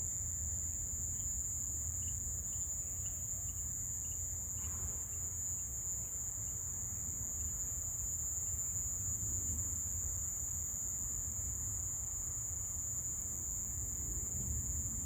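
Insect chorus at dusk: an unbroken, high-pitched shrill drone, over a steady low rumble.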